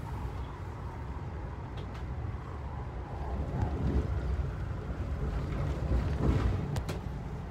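Steady rumble of wheels on rail heard from inside a moving Amtrak Amfleet I coach, swelling a little in the second half, with a couple of sharp clicks near the end.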